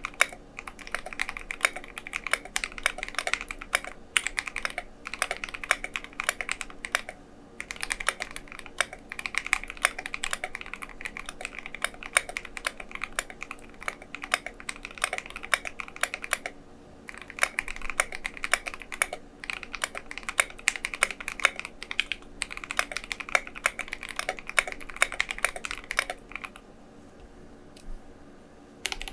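Typing on an ID80 Plus mechanical keyboard with Akko Starfish linear switches and Domikey SA-profile keycaps: fast runs of keystroke clacks. There are short pauses, and a longer lull of about two seconds near the end.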